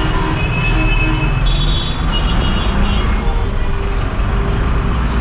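Busy street traffic dominated by the low, steady rumble of a diesel city bus idling close by. Short high tones of horns sound on and off, mostly in the middle, with voices of passers-by underneath.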